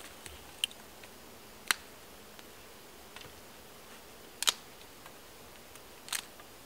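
Dry wood crackling and snapping at a small campfire: a few sharp, separate cracks over a faint steady hiss. The loudest is a double crack about four and a half seconds in, and a short cluster follows near the end.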